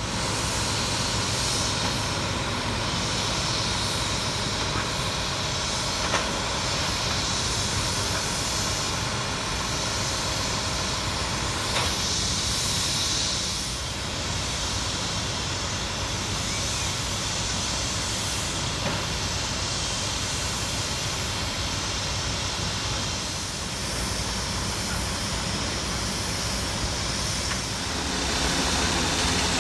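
Steady rushing hiss of fire hose water spraying onto a burning garbage truck, over the steady drone of engines running. The drone grows louder near the end.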